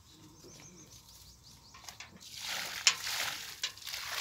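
Water poured from a steel bucket onto loose soil around a freshly planted sapling, splashing and soaking in: its first watering after planting. It starts about two seconds in, after faint bird chirps.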